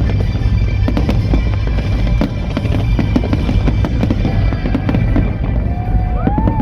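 Fireworks display: many sharp cracks and bangs over a deep rumble, with music playing loudly at the same time. A few brief whistling tones come near the end.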